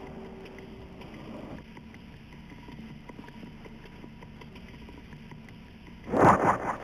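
A karate kiai: one loud, short shout near the end, over a steady background hiss with faint taps.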